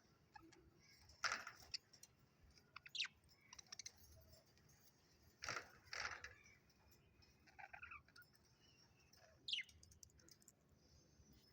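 Budgerigars giving a few faint, scattered chirps, including a quick falling chirp near the end, between brief rustling clicks.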